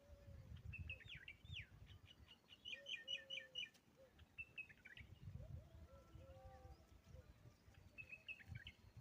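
Faint bird calls: scattered chirps and sweeping notes, with a quick run of about seven sharp notes in the middle. A few lower drawn-out notes and a low rumble sit underneath.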